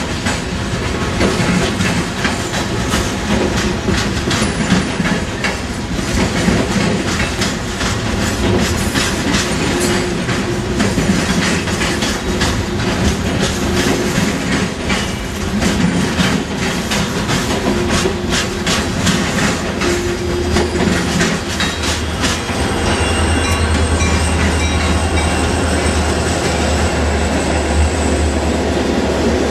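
Freight train cars rolling by, wheels clicking over rail joints and switch points. A thin high wheel squeal comes in about two-thirds of the way through, along with a low steady drone.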